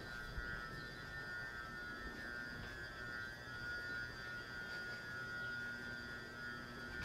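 Shinano Railway SR1 series electric multiple unit giving off a steady electrical whine of several close high tones, with a fainter lower hum underneath.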